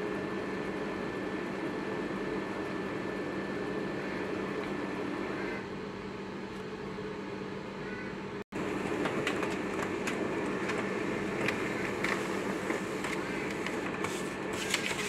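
Brother MFC-9335CDW colour laser printer running: a steady mechanical hum with a faint whine, which shifts about five seconds in. After a momentary dropout just past the middle, the hum goes on with frequent light clicks as it feeds and prints a test page, with the freshly cleaned toner cartridges now settled in.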